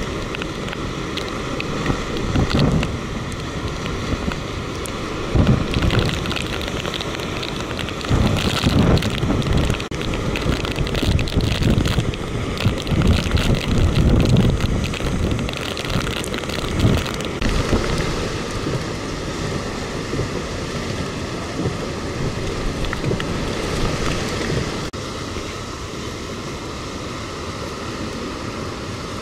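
Hurricane winds gusting hard and buffeting the microphone over a steady hiss of wind and rain. The gusts come in irregular loud blasts through the middle and settle to a softer, steadier rush near the end.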